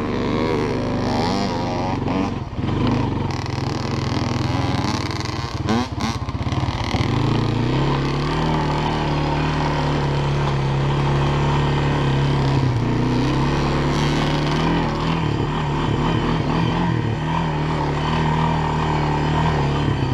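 Honda FourTrax ATV engine running under way. Its speed rises about seven seconds in, then holds fairly steady with brief dips. A few knocks and rattles from the machine come in the first six seconds.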